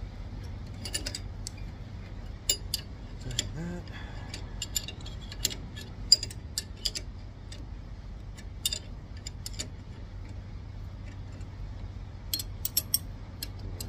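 Steel wrenches clinking and knocking against a bearing puller and against each other as they are swapped and fitted onto the puller's forcing screw: scattered sharp metallic clicks in small clusters, over a steady low hum.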